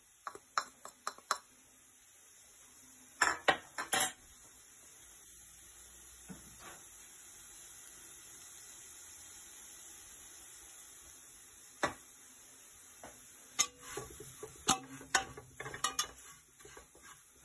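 Clinks and knocks against an aluminium cooking pot as blended tomato is poured in from a bowl and the frying onion masala is stirred with a metal spatula, with a faint frying sizzle in between. A cluster of louder knocks comes about three to four seconds in, and quick clinks of stirring fill the last few seconds.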